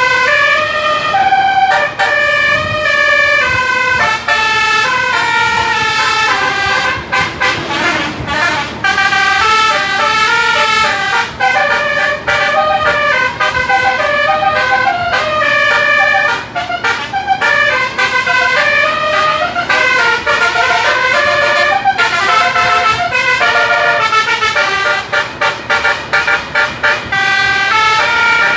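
An 18-note bus 'telolet' air-horn set playing a fast, unbroken melody of changing notes, several horns sounding at once, with a brief falling slide about eight seconds in.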